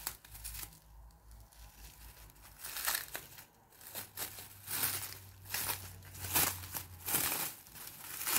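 Clear plastic bubble wrap crinkling and rustling in irregular bursts as it is handled and pulled open by hand.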